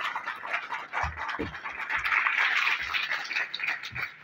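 An audience clapping: a dense, steady patter of many hands, with a few low thumps.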